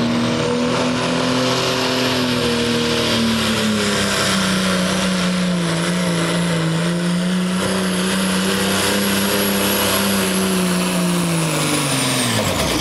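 Turbocharged diesel pulling tractor running flat out under load as it pulls the sled, a high turbo whine held over the engine. Near the end the engine speed and the whine drop away sharply as the pull ends.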